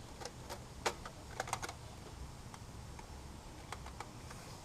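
Scattered light clicks and taps of metal engine parts and tools being handled during reassembly of a 5.7 Hemi's heads, irregular, the sharpest about a second in and a quick cluster just after, over a low steady hum.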